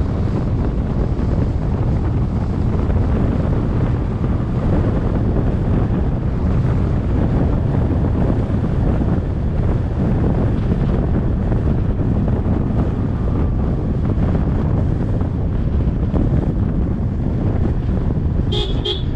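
Wind buffeting the microphone of a camera on a moving vehicle, over a steady low rumble from the vehicle driving on a dirt road. Two short high chirps sound near the end.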